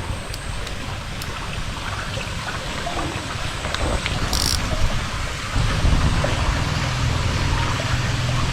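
Steady low rumble and hiss of traffic passing over a bridge overhead, growing heavier about five and a half seconds in.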